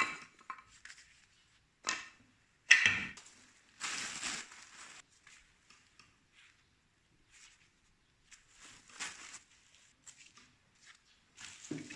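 Intermittent handling noises of old woodworking tools being picked up and set down: a few short knocks and scrapes, the loudest about three seconds in, with long quiet gaps between.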